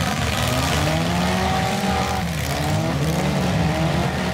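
Several demolition derby car engines revving hard at once, their overlapping pitches rising and falling as the cars ram and shove one another.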